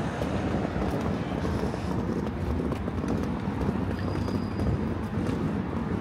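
Wheeled suitcases rolling over paving slabs, a continuous rattle.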